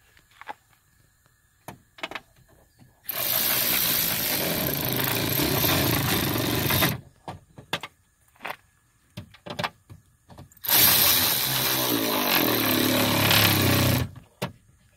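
Cordless electric ratchet running twice, each time for about four seconds, driving the window regulator's mounting bolts down snug inside a car door. Short clicks from the tool and bolts come between the runs.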